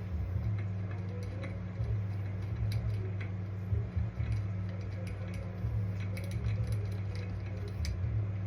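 Scattered light metallic clicks and clinks of hand tools and hardware as the Comet 780 clutch's bolt and washer are put back in and tightened, over a steady low hum.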